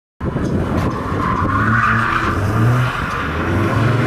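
Open-wheel sports car drifting, its engine note wavering as the rear tyres squeal and skid. The sound starts abruptly just after the beginning.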